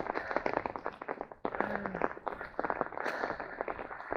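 Raindrops falling close by: a dense, irregular patter of small ticks and taps.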